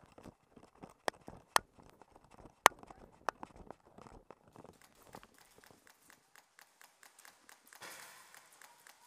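Quick running footsteps on a concrete floor, with four sharper, louder clicks among them in the first few seconds. The steps die away about halfway through.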